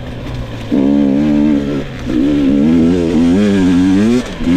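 2022 GasGas EX 250 two-stroke dirt-bike engine running under throttle, its pitch rising and falling as the throttle is worked in short pulls. It eases off briefly about two seconds in.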